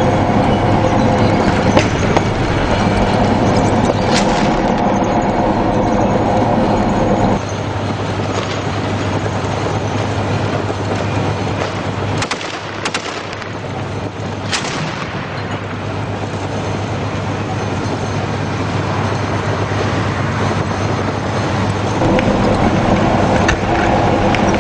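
Tank engine running with a steady drone, heard from the turret top; the drone drops away about seven seconds in and comes back near the end. A few sharp cracks of weapons fire, one about four seconds in and several between about twelve and fifteen seconds in.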